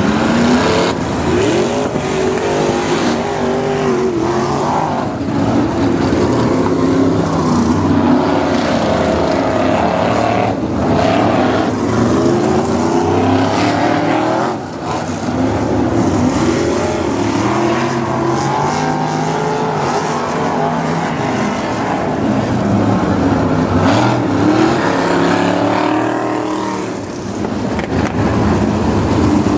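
Several 305 winged sprint cars' V8 engines running as the field circles slowly under caution. The pitch rises and falls as cars blip the throttle and pass by, with brief dips about halfway through and near the end.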